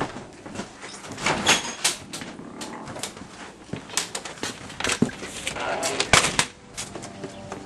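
Footsteps and scattered knocks and clicks of someone walking through a house and out through a back door, with a sharp door knock about six seconds in.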